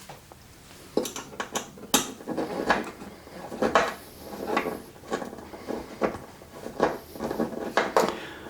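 Irregular small metallic clinks and taps from a small Phillips screwdriver and screws being worked on the back of a metal clock, starting about a second in.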